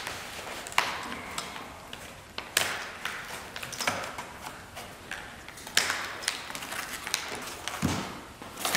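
Stiff fabric covering of an ultralight's tail surface rustling as it is handled and pulled along its edge, with a few sharp clicks and taps spread through it.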